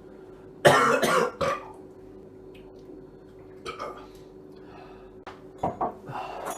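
A loud belch about half a second in, brought up after gulping lager, followed near the end by a few smaller throat noises.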